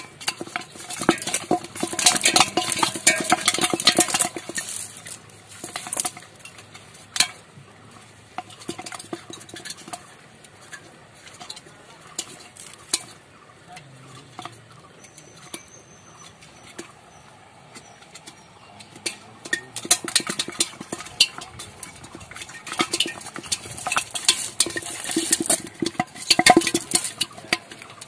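Live fish flapping in an aluminium pot, rattling and tapping against the metal in bursts. The busiest spells come in the first few seconds and again through the last third, with scattered lighter taps between.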